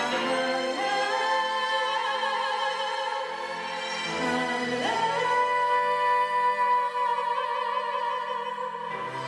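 A choir singing sustained notes with vibrato; about five seconds in the voices slide up into one long held note.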